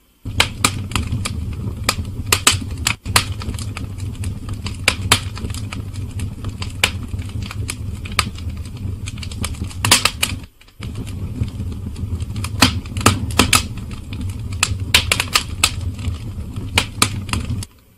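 Typing: keys clacking in an irregular patter over a steady low hum, broken off briefly twice.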